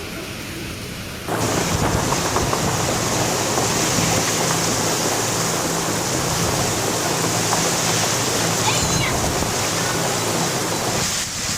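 Heavy rain falling, a steady dense hiss that cuts in abruptly about a second in and cuts out just as abruptly near the end.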